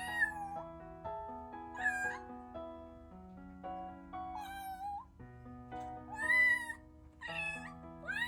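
Rescued kitten meowing loudly and repeatedly, about five high-pitched cries one to two seconds apart, calling for its mother. Soft background music with held piano-like notes plays under it.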